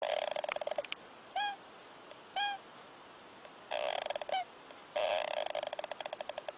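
Hamster snoring: three bursts of rapid, fluttering squeaky pulses that trail off, with two short single squeaks in the gap between the first two bursts.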